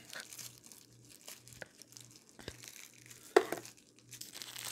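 Cardboard box being opened and a plastic wrapper crinkled as a small adapter is unwrapped, with scattered crackles and one sharp click about three and a half seconds in. The crinkling grows denser near the end.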